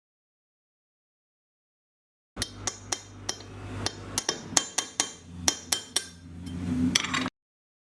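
Repeated sharp taps and knocks of a tool on the circular saw's metal parts: about a dozen irregular strikes over a low hum. They begin about two and a half seconds in, after dead silence, and cut off abruptly near the end.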